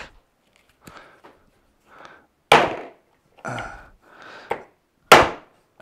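Sharp knocks of a sanding block used as a mallet, hammering a snap-in part into the plastic shop vac canister. Two loud strikes, about two and a half seconds apart, with softer taps and scrapes between them.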